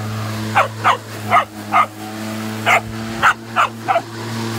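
A dog barking repeatedly, eight sharp barks in two runs of four with a short pause in the middle, over the steady hum of a cordless electric lawn mower's motor.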